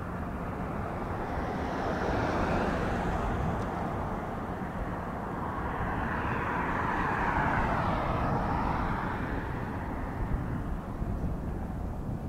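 Engine noise on an airport apron: a steady rumble that swells twice, with a whine that dips in pitch and climbs again near the middle.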